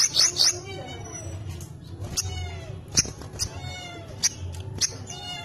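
A cat meowing several times in drawn-out, arching calls. Over the first half-second come rapid high chirps from a small caged songbird, a sogok ontong.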